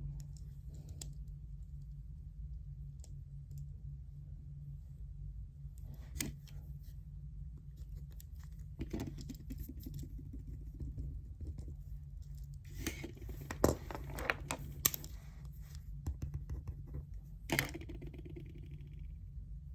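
Desk sounds of someone studying with pen and paper: scattered scratchy rustles and sharp little clicks and taps, busiest about two-thirds of the way through, over a steady low room hum.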